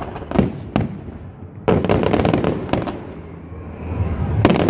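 A fireworks display with aerial shells bursting in sharp bangs: two single bangs, then a dense run of rapid crackling reports about two seconds in, and another loud cluster of bursts near the end.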